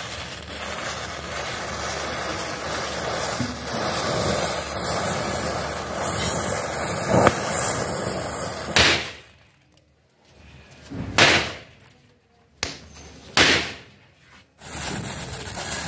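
Rows of matchsticks catching one after another in a chain, with a steady fizzing crackle for about nine seconds. After that it goes quiet, broken by three or four sharp bangs.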